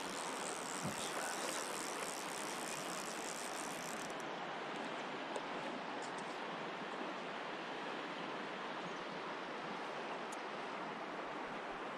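Steady rush of creek water flowing over rocks, an even hiss with a brighter top that drops away about four seconds in, and a few faint clicks.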